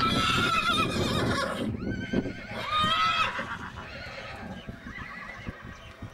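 Arabian horse whinnying: a long, loud quavering call at the start, a shorter one about two and a half seconds in, then fainter calls.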